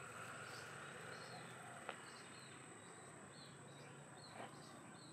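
Faint birds chirping in short, repeated calls over a steady high-pitched whine, with a small click about two seconds in and another near the end.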